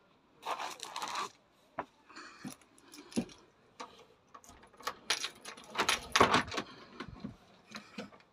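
Keys jangling, then a series of clicks and rattles from the lock and handle as a uPVC glass double door is unlocked and opened.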